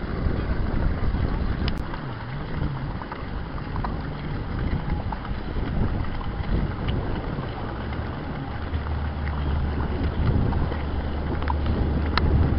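Correct Craft Ski Nautique ski boat's inboard engine running as the boat gets under way, a low hum that wavers in pitch and then settles into a steady drone. Wind buffets the microphone throughout.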